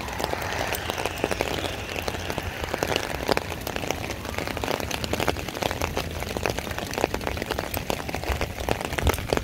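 Heavy rain falling, with many separate drops striking sharply close to the microphone over a steady hiss.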